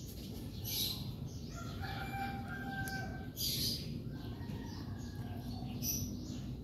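A rooster crowing faintly: a long held call starting about a second and a half in, then a second, fainter one.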